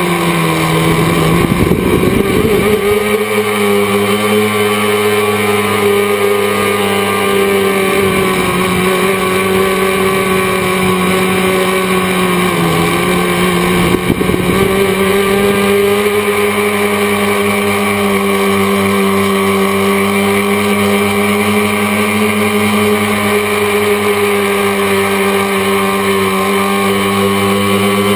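A tricopter's three motors and propellers droning steadily, heard through its onboard camera. The pitch dips briefly about a second in and again around the middle as the throttle eases. Rough wind noise rushes over the microphone during the first few seconds and for several seconds around the middle.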